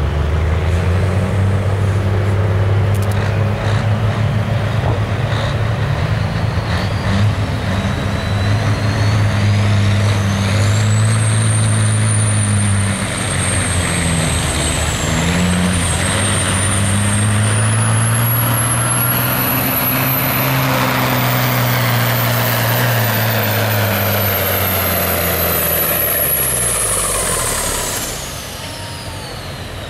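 Diesel semi-truck engine running at full power under heavy load in a pull run, its note wavering. A high turbocharger whistle climbs in pitch from about eight seconds in, holds high, and then falls away near the end as the engine comes off power.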